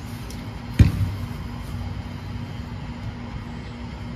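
Steady low outdoor rumble with a faint steady hum, broken by a single sharp knock a little under a second in.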